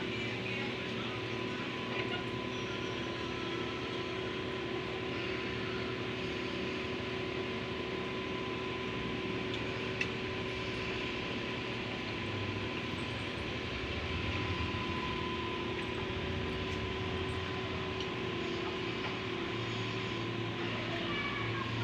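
Steady mechanical hum with a faint constant whine, and a single small click about ten seconds in.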